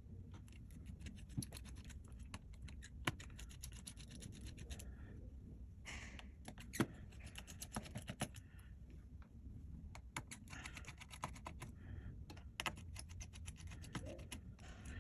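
Small hand tools working on a smartphone's plastic back frame: a run of faint, irregular clicks and light scrapes as screws are taken out and parts are pried.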